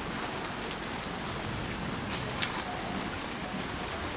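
Steady heavy rain falling and pattering on surfaces, with a few sharp drip clicks about two and a half seconds in.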